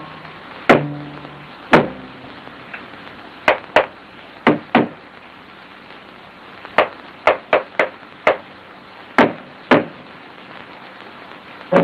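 Sharp wooden knocks at uneven intervals, often in pairs, with a few short plucked low string notes, over the steady hiss of an old film soundtrack.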